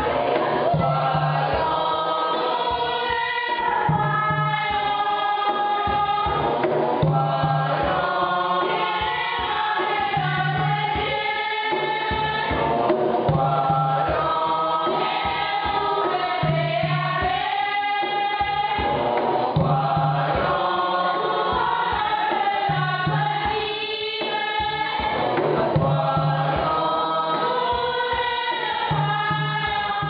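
Music with a choir singing, over a low bass note that pulses about every two seconds.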